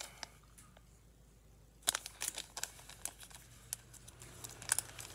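Plastic bag of soft plastic fishing baits being crinkled and opened: a run of sharp crackles that starts about two seconds in and thickens near the end.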